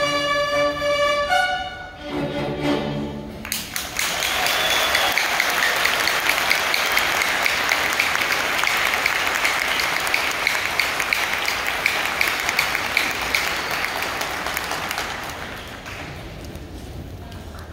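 An orchestra ends a piece on a final held chord a few seconds in. Loud applause from a large audience then fills the hall, with claps close by, and dies down near the end.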